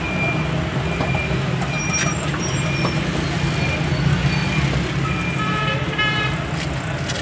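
Steady low drone of road traffic, with a short high beep repeating about once a second. A vehicle horn sounds for about a second, around five and a half seconds in.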